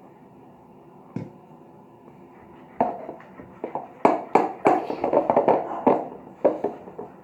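Fork tapping and clattering against the slime container: one tap about a second in, then a quick, loud run of taps and scrapes from about three seconds in until past six seconds.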